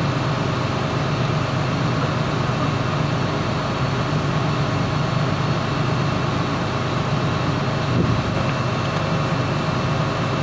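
Steady low drone of the boat's engine running, with a brief thump about eight seconds in.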